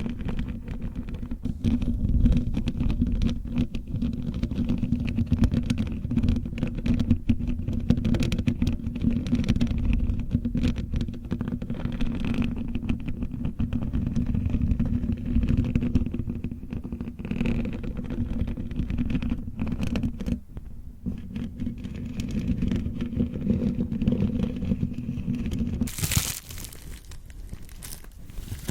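Fingernails scratching close to the microphone: a dense, low rumbling scratch with rapid fine clicks. Near the end it changes abruptly to crinkling plastic.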